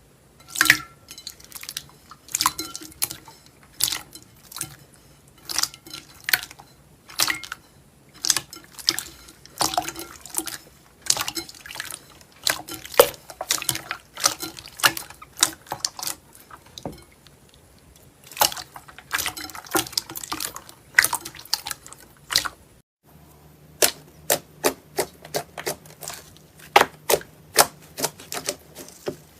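Slime being pressed and worked by hand, giving a run of sharp wet clicks and pops in quick clusters, with a short pause about three quarters of the way through.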